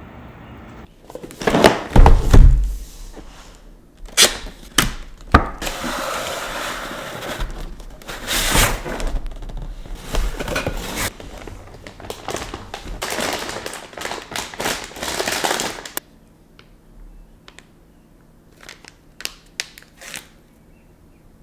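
PC parts and packaging handled by hand: heavy thuds about two seconds in, then a long stretch of rustling and scraping with knocks, and a few light clicks near the end.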